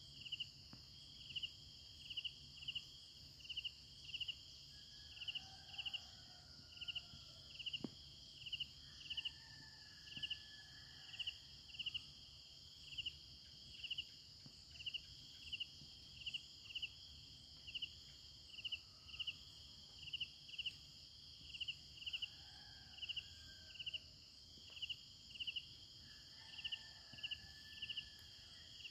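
Crickets chirping: short chirps repeating evenly, a little under two a second, over a steady high-pitched insect trill.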